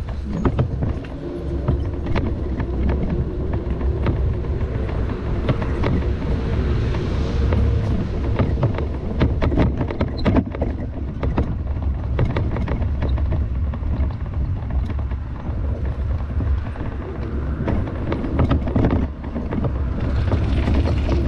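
Wind rumbling on the microphone of a moving bicycle, with frequent clicks and rattles as the bike rides over a rough gravel towpath.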